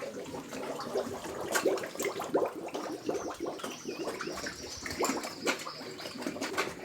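Pigs eating wet feed from a trough: irregular slurping, smacking and chewing.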